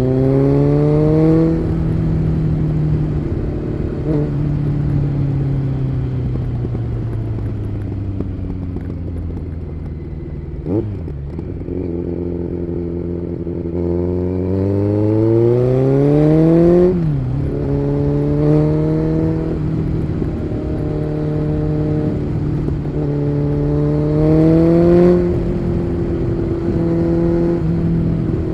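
Kawasaki Z900's inline-four engine through an aftermarket SC Project exhaust, under way on the road. It pulls hard, shifts up once, then drops slowly in pitch for several seconds as it slows. It then accelerates again through three or four quick upshifts, each a rising note that cuts back sharply, and settles into a steady cruise near the end.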